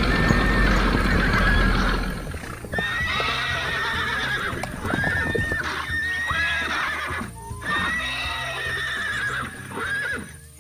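A series of high, pitched animal cries, each about a second long, with clopping and background music.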